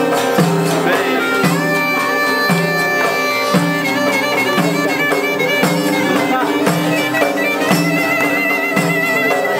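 Live Greek folk band playing a dance tune: a clarinet leads with long held notes over violin and a strummed lute that keeps a steady bass beat.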